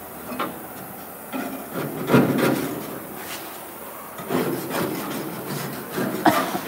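Irregular scraping and rubbing against rusted car-body sheet metal, in uneven strokes, the loudest about two seconds in and again near the end.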